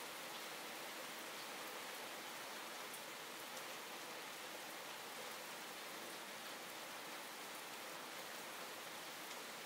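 Calm, steady rain falling: an even hiss of rainfall, with now and then a faint tick of a single drop.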